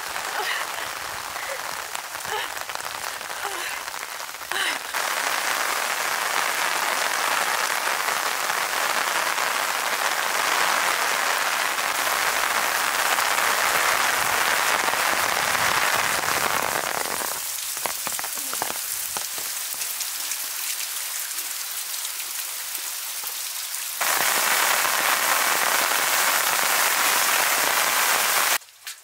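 Steady rain falling, a dense hiss that jumps up and down in level in a few abrupt steps and stops just before the end.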